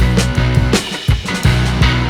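Background rock music with electric guitar, bass and drum kit.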